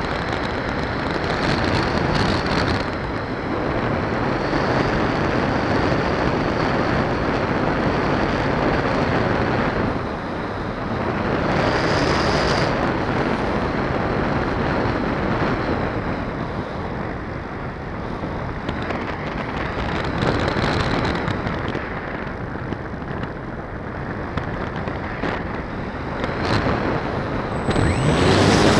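Air rushing over the onboard camera's microphone of an FPV model plane gliding with its motor off, swelling and easing as the plane banks. Near the end the plane's motor starts up and the propeller begins to spin.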